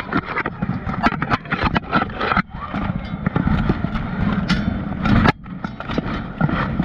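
Steel plate armour clanking and scraping as two armoured fighters grapple at close quarters, with many sharp metal knocks and a loud knock about five seconds in.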